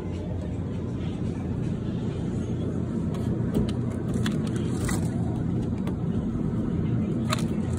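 Steady low rumble with a few light clicks and knocks as plastic drink bottles are taken from a shop's drinks cooler.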